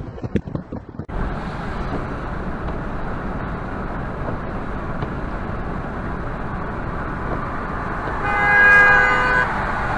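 Steady road and engine noise heard from inside a car at highway speed, then a car horn sounds one steady blast of about a second and a half near the end.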